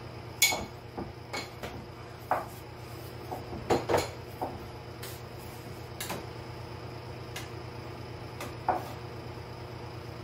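Kitchen knives knocking and clicking on wooden cutting boards while octopus and onion are sliced, with utensils clinking against a bowl: scattered, irregular strokes, the loudest about half a second and four seconds in. A steady low hum runs underneath.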